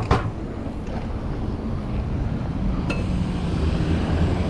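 Mountain-bike ride heard from an on-bike or helmet microphone: steady wind buffeting and tyre rumble. There is a sharp knock at the very start and a small metallic clink about three seconds in.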